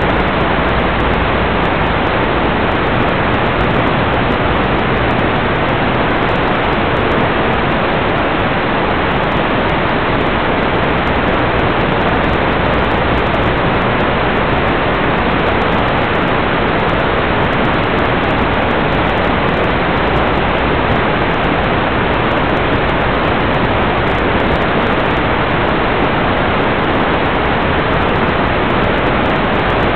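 Steady, loud hiss of static with no tone or rhythm in it: the empty audio channel of an analog 1.2 GHz FPV video link, recorded at the receiving goggles.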